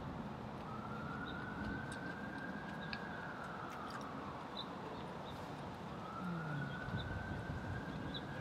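Emergency-vehicle siren wailing, a slow rise and fall of pitch that starts again about six seconds in, over a steady outdoor background hiss.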